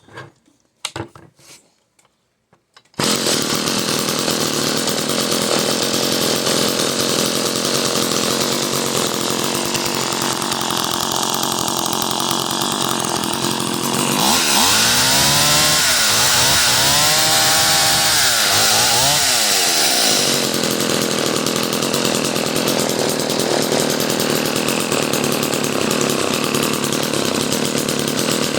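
Vintage Homelite 150 two-stroke chainsaw engine. After a few faint clicks it comes in suddenly about three seconds in and idles, is revved up and down several times in the middle, then settles back to a steady idle.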